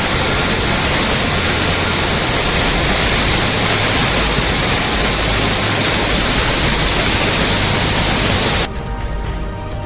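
Loud, steady rush of heavy water, cutting off suddenly near the end as music starts.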